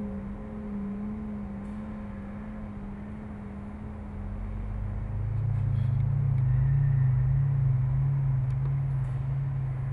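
Low steady droning rumble: a hum that fades over the first few seconds, then a deeper drone that grows louder about four to five seconds in and holds.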